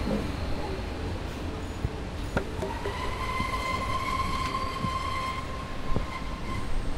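Added sound-effect ambience: a steady low rumble, with a long high-pitched squeal that starts about two and a half seconds in and fades out near the end. A few sharp clicks sound over it.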